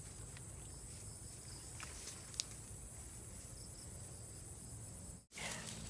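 Faint steady high chirring of insects, with a few faint ticks about two seconds in; the sound cuts out for a moment near the end.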